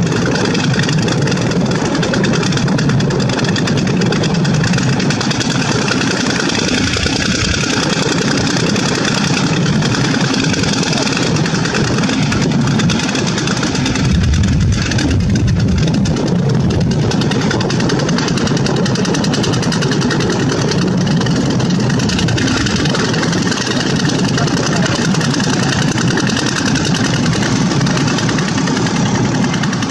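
Diesel engine of a loaded Mitsubishi Fuso Colt Diesel dump truck running under load as the truck drives through shallow river water and over gravel. Its deep rumble swells for about two seconds about halfway through.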